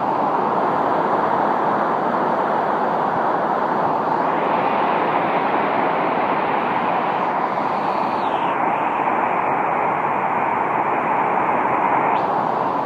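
Hurricane wind and driving rain: a loud, steady rush of noise.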